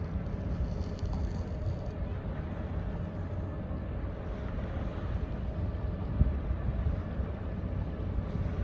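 Steady low rumble and faint hum from the Great Lakes bulk freighter John D. Leitch, a forward-pilothouse laker, moving slowly past, mixed with wind buffeting the microphone.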